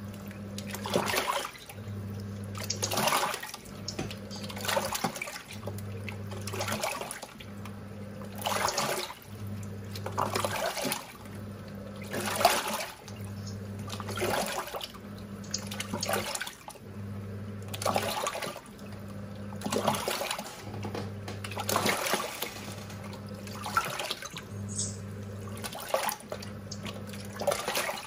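Giantex EP23113GB top-loading washing machine in its wash: the wash motor hums for about a second, stops briefly and starts again, about every two seconds, with water sloshing in the tub on each stroke.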